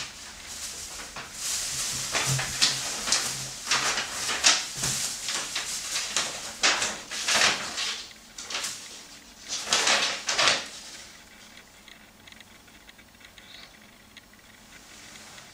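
Thin plastic shopping bag and paper rustling as they are handled, in irregular crinkling swishes for about ten seconds, then faint.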